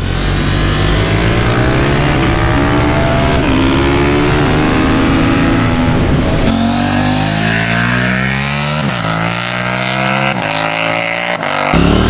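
KTM Duke 790's parallel-twin engine through an aftermarket Austin Racing exhaust, ridden hard: the engine note climbs under throttle and steps as gears change. From about six and a half seconds in, wind noise on the onboard microphone grows, and the revs drop sharply twice near the end.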